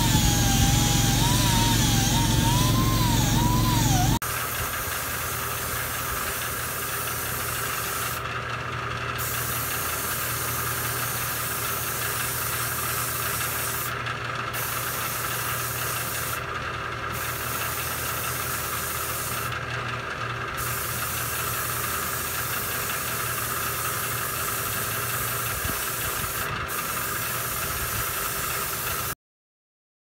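Air tool working on an alloy wheel: a whine that wavers in pitch for about four seconds. After a cut comes a steady mechanical hum with a hiss that breaks off briefly several times, then everything stops abruptly near the end.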